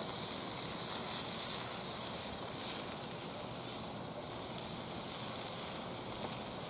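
Pork sausages frying in their own fat on a griddle, a steady sizzle.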